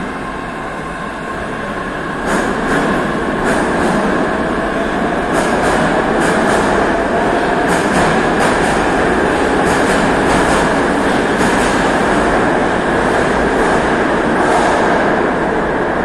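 Saint Petersburg metro train pulling out of the platform. Its rolling rumble grows louder about two seconds in, with a faint rising motor whine and repeated clicks, often in pairs, as the wheels pass over rail joints.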